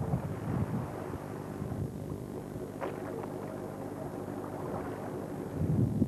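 Fishing boat's engine running with a steady low drone, with a low thump near the end.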